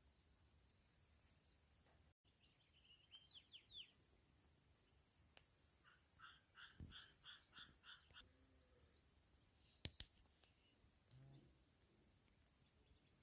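Faint night-time animal sounds. A steady high-pitched insect drone runs throughout. Midway there is a short run of pulsed calls, about four a second, and a couple of sharp clicks come later.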